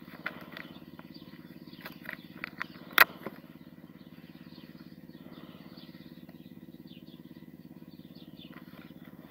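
Crinkling and tearing of a cigarette pack's paper inner liner as it is pulled out by hand: a run of sharp crackles with one loud snap about three seconds in, then only faint rustling. A steady low drone underlies it throughout.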